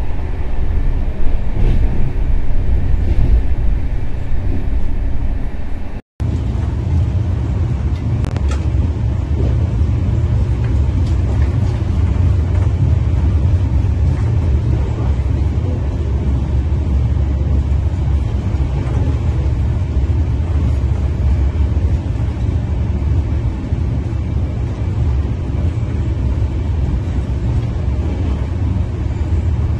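Running noise inside a Shatabdi Express coach at about 150 km/h: a steady, loud, deep rumble of wheels on rail. It cuts out for an instant about six seconds in.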